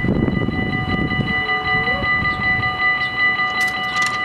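Level-crossing warning bells ringing continuously with rapid, evenly repeated strokes, signalling that the barriers are closing for an approaching train.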